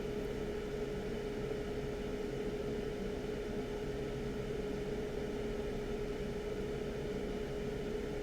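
Steady hum of bench equipment on a microsoldering workbench, a fan-like whoosh with one constant mid-pitched tone running through it.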